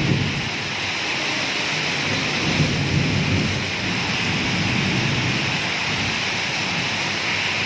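Heavy monsoon rain pouring down steadily, a loud even hiss of a downpour splashing onto flooded ground and sheet roofing, with a low rumble underneath.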